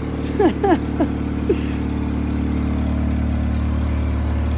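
Car engine running smoothly and evenly, no longer misfiring now that oil-soaked spark plugs and leaking spark plug tube seals have been replaced; the steady note grows a little louder over the first few seconds. A few short falling squeaks sound in the first second and a half.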